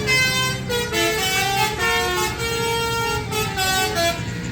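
Multi-tone 'telolet' bus horn playing a tune of held notes that step up and down, over a steady low engine hum.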